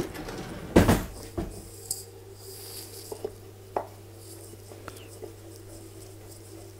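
Small wooden rolling pin knocking on a wooden pastry board, loudly about a second in and again just after, then light taps and rolling as a piece of dough is rolled out into a round wrapper.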